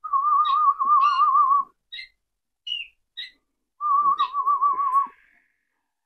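Harzer Roller canaries singing: two long, low, wavering rolled phrases, each over a second long, with short high chirps between them.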